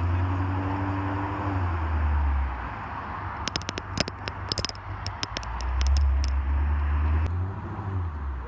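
Shelby GT350R's V8 engine running with a deep rumble that swells twice, about three seconds apart. Between the swells comes a cluster of sharp crackles.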